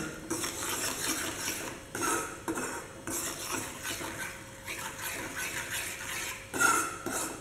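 A metal spoon stirring ghee into roasted wheat flour in a metal kadai, scraping against the pan in repeated irregular strokes.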